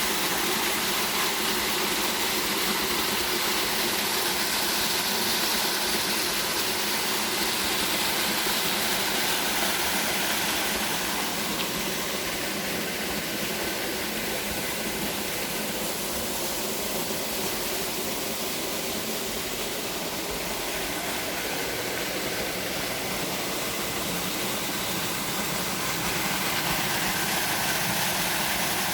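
Small waterfall pouring into a pool: a steady rushing of falling water, a little softer through the middle stretch.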